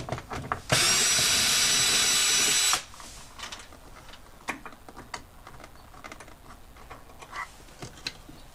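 Power drill spinning for about two seconds to back out an 8 mm door-panel bolt, then light clicks and ticks as the bolt and tool are handled.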